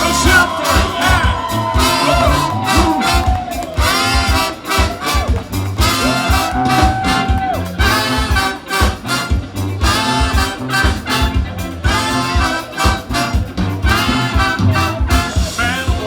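Live party band playing an instrumental passage: a brass section of trumpets and trombone plays melodic lines over a steady drum and bass beat.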